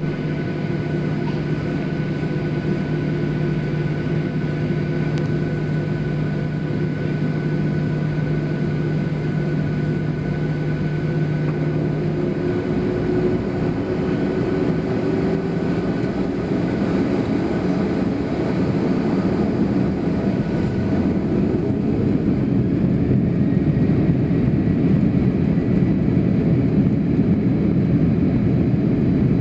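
Boeing airliner's jet engines heard from inside the cabin over the wing during the taxi, a steady hum with a thin whine. Around the middle a tone rises, and the engine noise grows louder and rougher toward the end.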